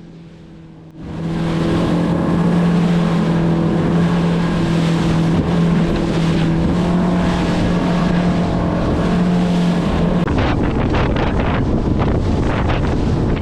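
Dory's outboard motor running at a steady pitch under wind and water noise, loud from about a second in. About ten seconds in the engine note drops out, leaving gusting wind on the microphone and choppy, slapping water.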